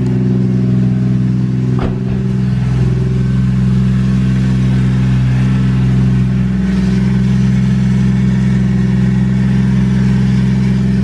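Nissan R34 Skyline's 1JZ engine idling steadily just after a cold start, at a fast cold idle. A brief click about two seconds in.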